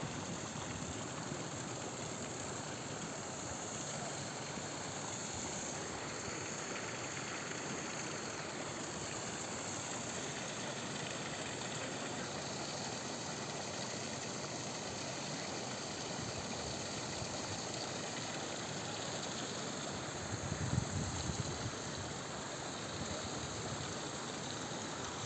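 Steady rush of running water from a stream and a small spout pouring into a thermal pool, with one short low thump about three-quarters of the way through.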